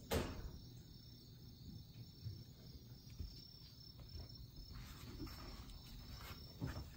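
A sharp knock right at the start, then soft light taps and rustles of a kitten's paws walking on tatami and a cardboard scratcher in the second half, over a faint steady high chirring in the background.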